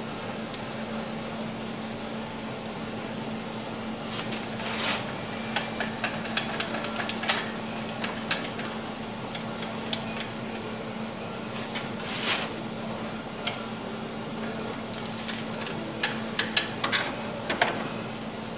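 A steady electric hum in a workshop, with scattered light clicks, knocks and clinks from about four seconds in, as tools or small metal parts are handled.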